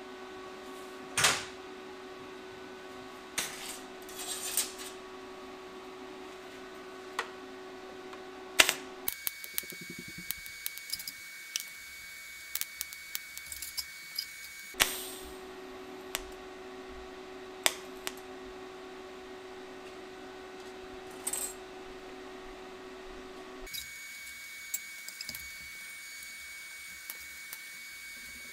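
Workshop clatter: repeated sharp clicks and clanks of metal parts and tools being handled at the bench. Under them runs a steady hum that cuts out about nine seconds in, comes back around fifteen seconds, and cuts out again near twenty-four seconds.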